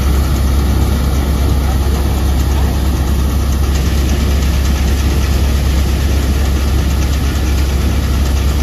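Jagatjit straw reaper threshing wheat, driven by a Swaraj 963 tractor: a loud, steady machine noise with a strong deep hum, as straw and grain pour out beneath the machine.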